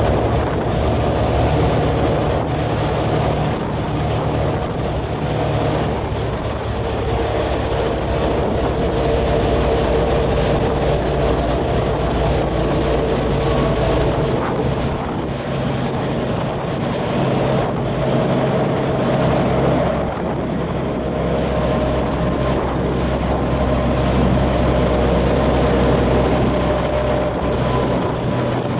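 Motorboat engine running steadily at speed, heard from aboard, with wind on the microphone. The engine's pitch shifts a few times.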